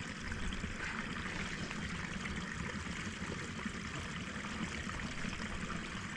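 Running water trickling steadily through a small pool.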